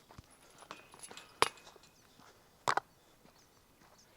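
Quiet outdoor scene with faint high bird chirps, cut by two sharp clicks or knocks about a second and a half apart.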